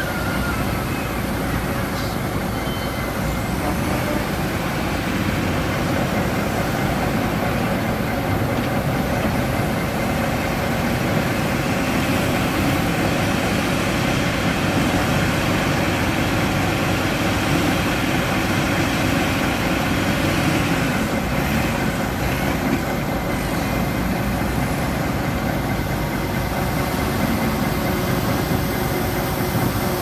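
Wheel loader's diesel engine running steadily as the machine works, scooping and lifting a bucket of soil, a little louder through the middle stretch.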